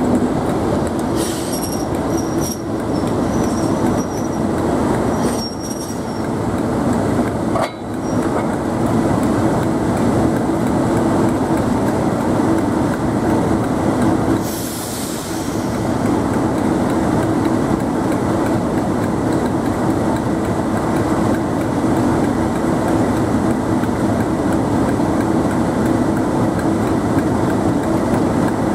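English Electric V12 diesel engines of Class 37 locomotives running, a loud steady drone. In the first few seconds a locomotive rolls slowly over the tracks, and its wheels give a couple of brief high squeals.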